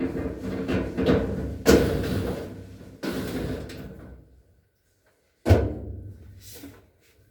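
Four knocks and bangs of a Whirlpool clothes dryer's cabinet being handled during a repair, each dying away over about a second.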